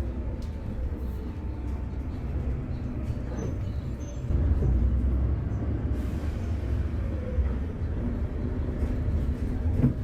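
A moving vehicle's steady low rumble, growing louder about four seconds in.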